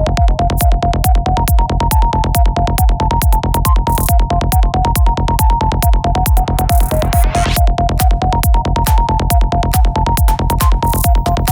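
Psytrance music with a steady driving kick drum and a repeating high melodic riff; a falling noise sweep passes through about seven seconds in.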